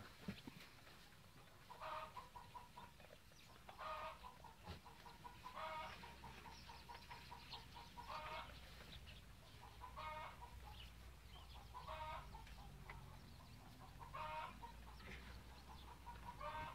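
Faint bird calls repeated about every two seconds, eight times in all, over a low steady rumble.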